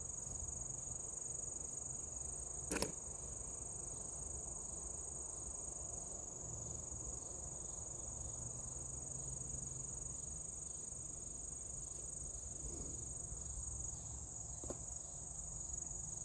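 Steady high-pitched chorus of insects. A single sharp click comes about three seconds in, and a fainter one near the end.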